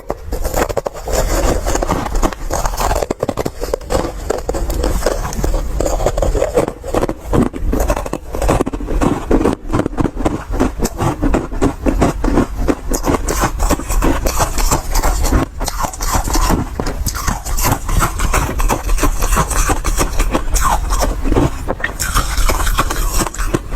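An ice ball dusted with matcha powder being bitten and chewed close to the microphone: a dense, unbroken run of crisp crunching and crackling.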